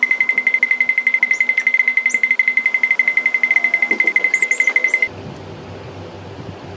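Rapid, evenly spaced electronic beeping at one steady high pitch, like an alarm clock, that cuts off abruptly about five seconds in; a quieter low hum follows.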